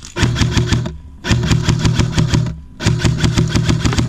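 Airsoft rifle firing on full auto in three rapid bursts, each about a second long, with short pauses between them.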